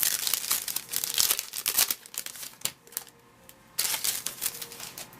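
The foil wrapper of a 2010 Bowman Platinum baseball card pack crinkling as it is handled and torn open, with a short pause just before the fourth second.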